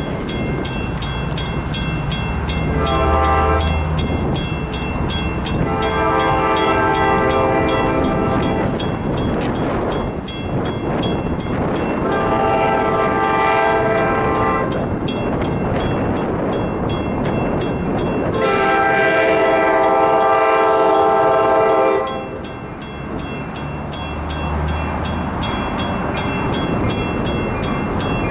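A passing train's multi-tone horn sounds a series of blasts: a short one, then three long ones, with another beginning at the very end. Underneath runs the steady rumble and clatter of the train.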